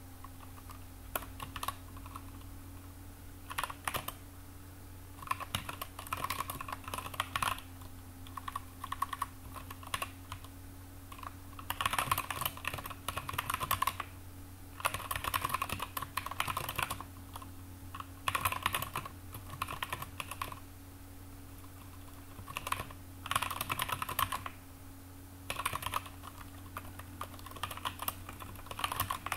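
Computer keyboard being typed on, with quick runs of key clicks lasting a second or two and short pauses between them as code is entered.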